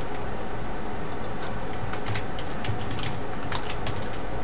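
Typing on a computer keyboard: a run of irregular key clicks starting about a second in, over a steady low background hum.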